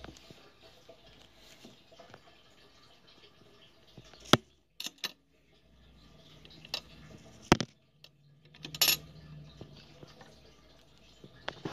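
Scattered sharp clicks and light metallic knocks, about half a dozen, from hands working at a sewing machine's presser foot and the fabric beneath it.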